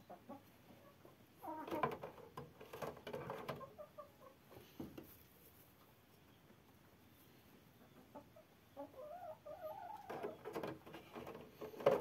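Domestic hens clucking in two spells of short, quick calls, the second with a rising and falling run of clucks, mixed with a few knocks and rustles.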